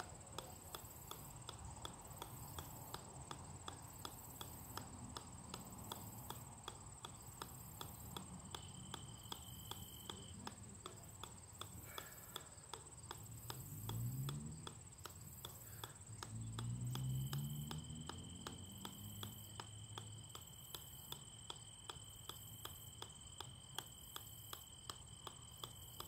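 Golf ball bouncing on the steel head of an 8-pound sledgehammer: a sharp click about three times a second, steady and unbroken. Twice around the middle a low rising hum swells up and fades, and a faint steady high tone comes and goes.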